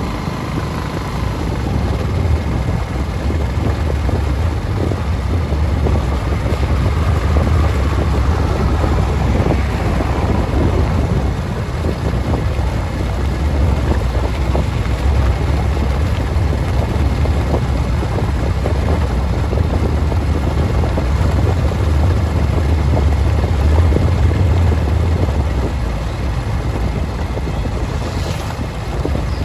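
Wind buffeting the microphone over a steady low rumble of a moving vehicle travelling along a brick-paved road.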